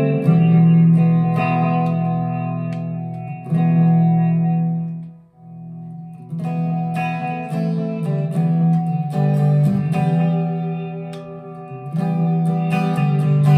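Harley Benton TE-90 FLT electric guitar played through an amplifier: strummed chords ringing out and dying almost away about five seconds in, then picked notes and chords resuming, louder again near the end.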